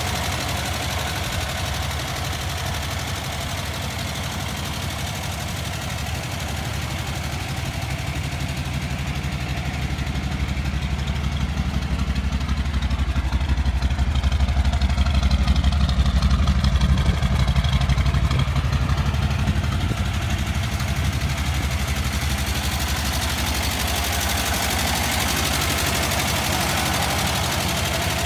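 1951 Cadillac Series 62's 331 V8 idling steadily, unrestored and running for the first time in 25 years, with two cylinders down on compression from excess valve clearance. It is louder for a while midway, heard close to the tailpipe.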